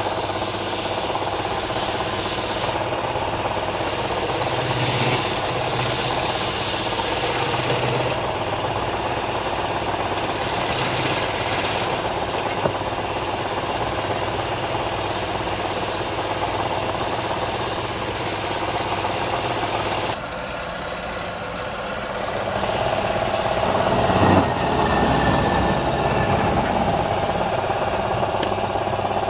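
Small motor-driven wood lathe running steadily, with a turning tool and then sandpaper rubbing against a spinning wooden ball. About twenty seconds in the noise drops briefly, then rises again.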